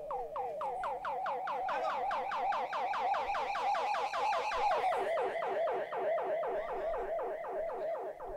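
A siren-like warbling sound effect from the band's stage setup: one pitched tone with overtones that glides down in pitch over and over, about five times a second, dying away near the end.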